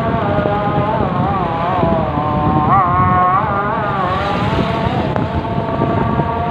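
Road traffic and vehicle noise while travelling along a street: a steady engine rumble with wind. Over it runs a long held pitched tone with several overtones that wavers and bends up and down through the middle, then steadies again.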